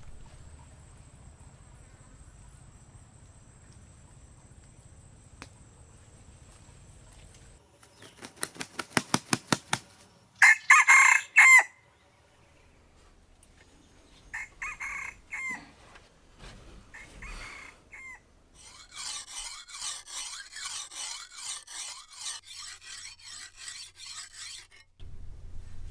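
Chickens calling, with a rooster crowing in loud pitched bursts about ten seconds in and shorter calls after. A run of regular rasping strokes, about three a second, follows near the end.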